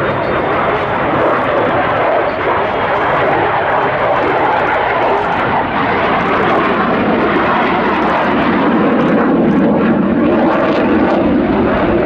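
Dassault Rafale fighter's twin Snecma M88 turbofans: loud, steady jet noise as the aircraft flies its display manoeuvres, growing a little louder in the last few seconds.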